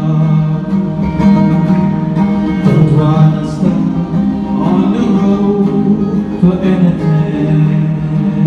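A man singing a gospel song live to his own acoustic guitar, through a microphone.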